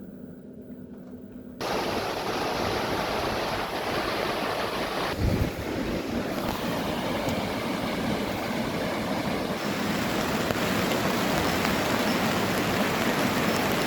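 Heavy downpour of rain and hail pelting down, a dense steady hiss that starts abruptly after a quiet opening of about a second and a half. A single low thump sounds about five seconds in.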